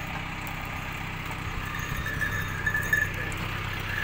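Tractor engine running steadily at idle, a low even hum, with a few short knocks about three quarters of the way through.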